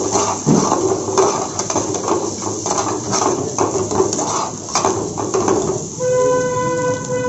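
Steel ladle scraping and clattering against an aluminium frying pan as chopped onion, capsicum and garlic are stirred over a gas flame. About six seconds in the stirring stops and a steady pitched tone sounds for over a second.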